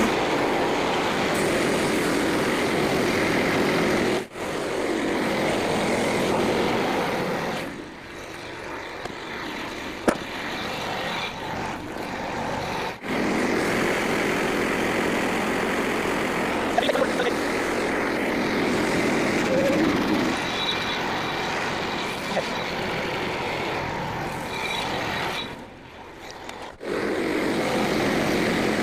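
Frontier OS27 portable band sawmill running, its gas engine under load as the blade cuts through a white pine log, with a few sudden dips in level.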